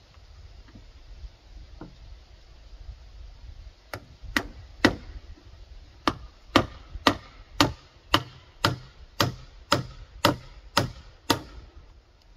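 Hammer driving a nail into a rough-sawn wooden board: three blows about four seconds in, then a steady run of about a dozen strikes, two a second.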